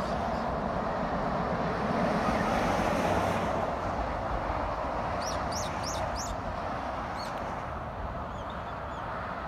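Steady hum of expressway traffic, tyres and engines blended into one even noise. About halfway through a bird gives four quick high chirps, with a few fainter calls near the end.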